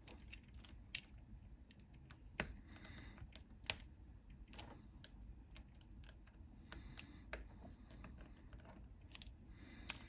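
Faint, scattered clicks and scrapes of a small flat screwdriver blade prying at the bent-over metal claws of an Amstrad CPC464 slide power switch to open its housing. The two sharpest clicks come about two and a half and three and a half seconds in.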